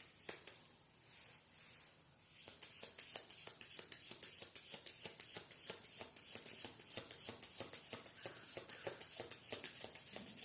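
A deck of spirit animal oracle cards being shuffled by hand: a quick, continuous run of soft card clicks.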